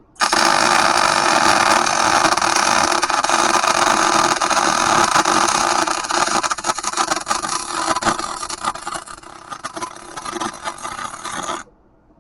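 Electric arc welder laying a bead: a loud, steady crackling hiss that starts abruptly, grows more uneven and sputtering about halfway through, and cuts off sharply near the end.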